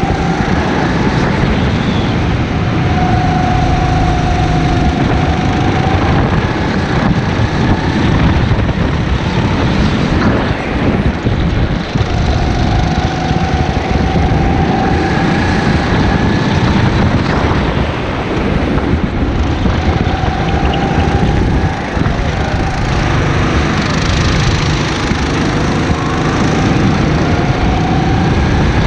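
Go-kart engine running hard, its pitch rising and falling again and again with the throttle through the corners, over a constant rushing noise.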